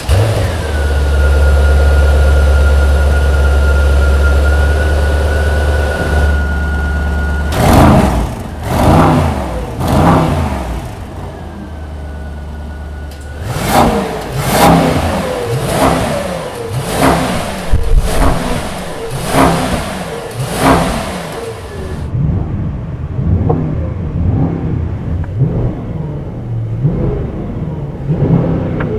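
Mercedes-AMG S 63 E Performance's 4.0-litre twin-turbo V8 starts up and idles with a steady high whine. It is then revved in short blips: three quick ones about eight seconds in, then a run of about ten more. In the last several seconds the revving goes on, duller and muffled, as heard from inside the cabin.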